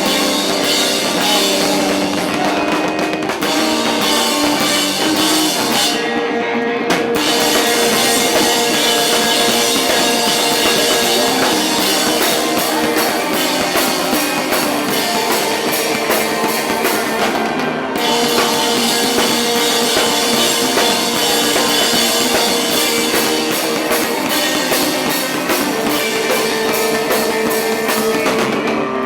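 Rock band playing live: drum kit with steady cymbal strikes under guitar, with two short breaks where the cymbals drop out.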